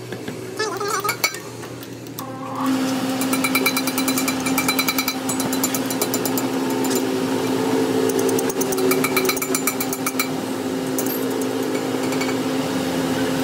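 Metal lathe starting up about two and a half seconds in and then running steadily with a hum, while a twist drill in the tailstock chuck bores into the end of the spinning metal shaft. Rapid ticking rattles run throughout.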